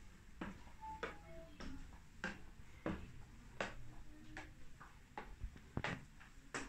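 Footsteps of someone walking up a staircase and on, a steady series of soft knocks at about three steps every two seconds.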